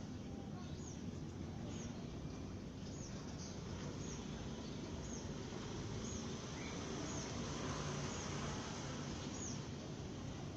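Eurasian tree sparrows chirping: short, high, downward-hooked chirps about once a second, over a steady low background noise.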